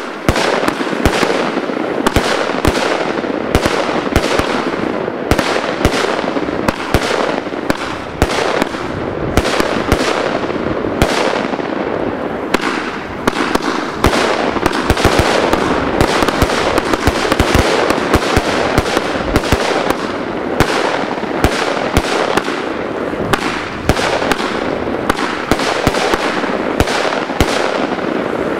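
Weco Rockstar firework cake firing an unbroken barrage: many sharp shots and bursts a second over a continuous rushing noise.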